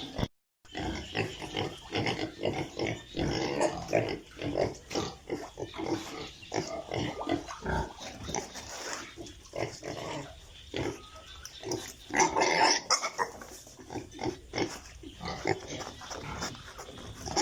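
A group of piglets grunting and squealing in many short, overlapping calls, with a brief silent break just after the start and the loudest squeals about twelve seconds in.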